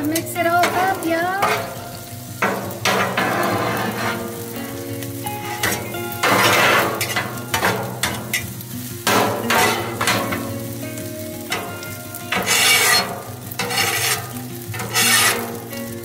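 Metal griddle spatulas scraping and chopping across a steel flat-top griddle, tossing fried rice with egg and chicken over a steady sizzle, with a sharp scrape every second or two.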